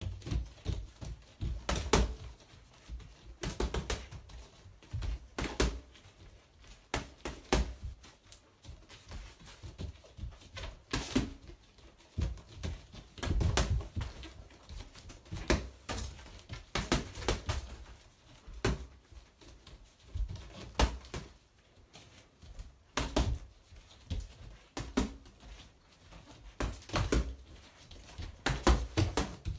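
Boxing gloves striking a hanging Rosomakha heavy bag in quick combinations of two to four punches, with short pauses between bursts.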